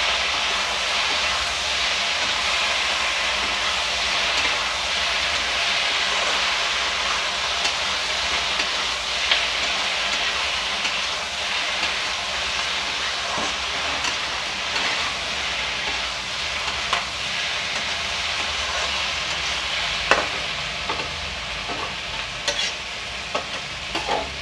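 Okra, onion and tomato masala sizzling in a metal kadai over a high gas flame as it is stirred with a spatula. A few sharp clicks and scrapes of the spatula against the pan come over the steady frying hiss, more of them in the second half.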